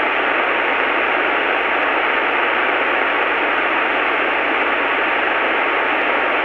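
Steady hiss on an aircraft headset intercom feed, with a faint steady tone underneath.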